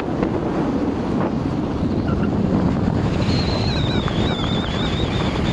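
Wind buffeting a phone microphone held out of a moving car's window, over the car's road and engine rumble. A thin, wavering high whistle joins about three seconds in.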